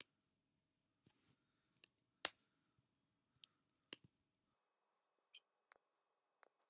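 About ten faint, sharp clicks of a computer pointing device, spaced irregularly, as tools are picked and sketch points placed in the CAD program; the loudest comes a little over two seconds in.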